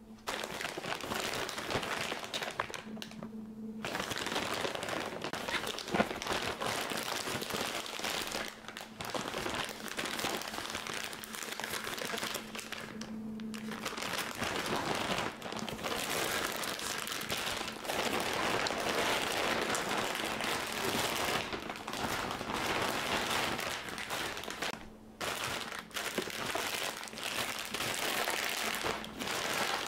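Okonomiyaki frying in a hot pan: steady sizzling, cut off briefly a few times.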